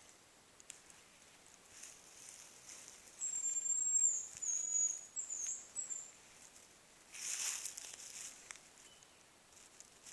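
Hazel grouse whistling its song: a long, very high, thin whistle followed by several shorter notes, lasting about three seconds. A second or so later comes a brief rustle.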